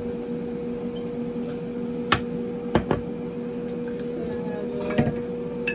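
Bottles and a shot glass clinking and knocking as liquor shots are poured for a cocktail: about five sharp clicks, two in quick succession near the middle. A steady low hum sounds underneath.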